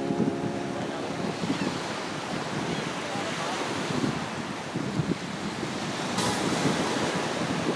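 Gulf surf washing onto the beach, with strong wind buffeting the microphone in gusts.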